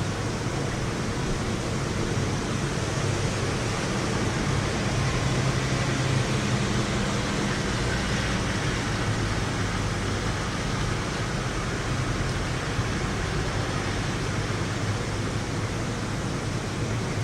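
Steady rain during a thunderstorm, an even hiss, with a faint low rumble swelling a little in the middle.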